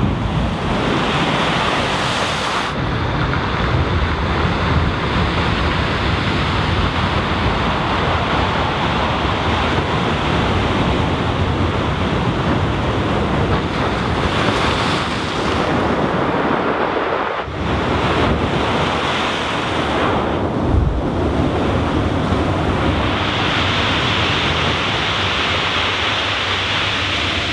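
Heavy sea surf breaking against a stone seawall at high tide and washing back over shingle, a continuous loud wash of water with wind buffeting the microphone.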